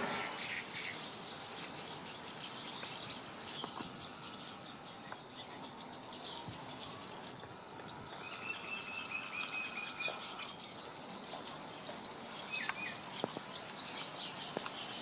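Birds chirping and twittering, with insects, in many short high calls. About eight seconds in, a steady high trill runs for about two seconds.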